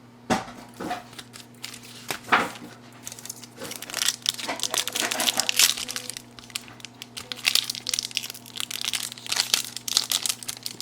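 A few light knocks of cardboard being handled, then plastic trading card pack wrappers crinkling steadily as the packs are handled and worked open.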